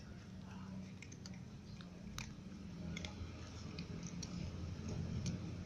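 Cats crunching dry kibble: small, irregular crunches and clicks as they chew, over a low steady hum.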